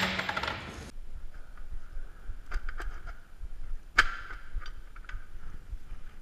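Metal clinking and knocking as a motorcycle's exhaust silencer is worked loose and pulled off. A busy metallic rattle fills the first second and stops abruptly, then come scattered clinks and knocks, the loudest about four seconds in.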